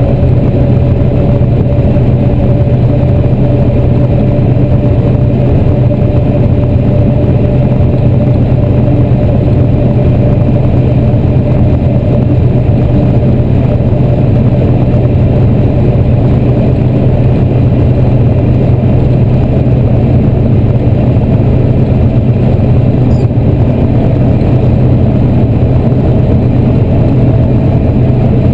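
Class 14 diesel-hydraulic locomotive's Paxman Ventura V6 diesel engine running steadily as the locomotive travels along the line, heard loud from inside its cab. The deep engine sound holds at an even pitch and level throughout.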